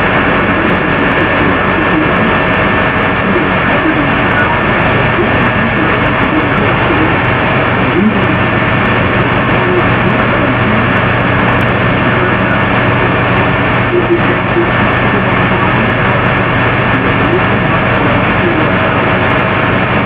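Heavily amplified computer-microphone recording of a quiet room: a loud, even hiss and static with steady hum tones through it, and faint wavering voice-like fragments beneath.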